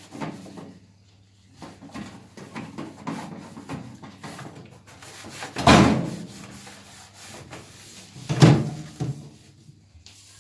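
Handling and cleaning noises at a microwave: a run of small knocks and rubs, with two louder thuds, one just past halfway and one near the end.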